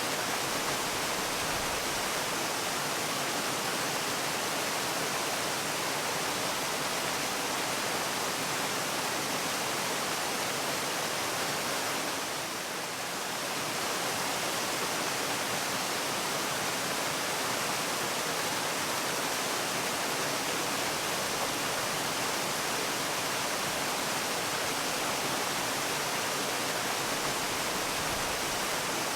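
Waterfall: a steady rush of falling water, an even hiss with little low rumble, which dips slightly in loudness for about a second about halfway through.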